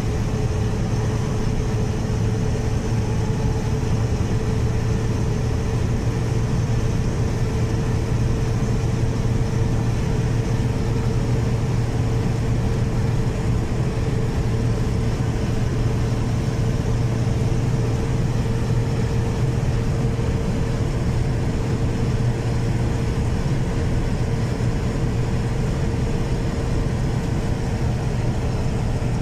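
Steady engine drone and road noise heard from inside a vehicle's cab while it drives along a highway, with a constant low hum and a fainter steady tone above it.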